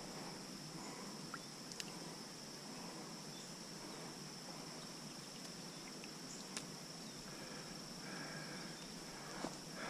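Faint outdoor ambience: a steady, high-pitched insect drone over a low even hiss, with a few sharp clicks scattered through.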